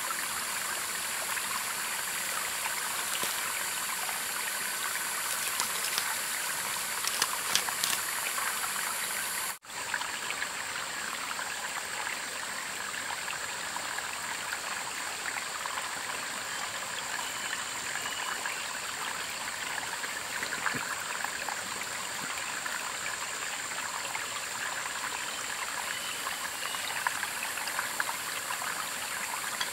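Steady rushing of running water, like a stream, broken by a brief drop-out about ten seconds in.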